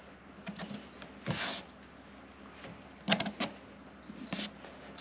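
A hand pressing and rubbing along a hard plastic door panel insert, giving a few light clicks and a short rub, with a quick cluster of clicks about three seconds in. The insert is being pressed to check whether its silicone has held it down.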